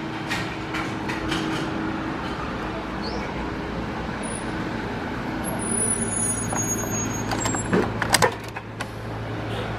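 Steady low mechanical hum at a car wash pay terminal, with scattered clicks and a short cluster of sharp clicks and knocks about eight seconds in as a card is worked into the terminal's slot.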